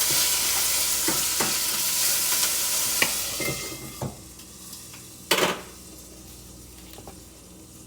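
Peppers sizzling in a frying pan while being stirred, with a few knocks of a utensil against the pan. The sizzling falls away about four seconds in, and a short loud clatter follows a second later.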